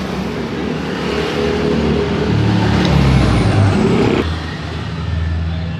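A vehicle engine running and rising in pitch, breaking off abruptly about four seconds in, followed by a steadier low hum.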